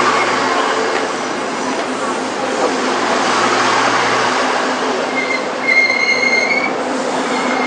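Train running at the station, a steady loud noise, with a high wheel squeal lasting about a second near the end.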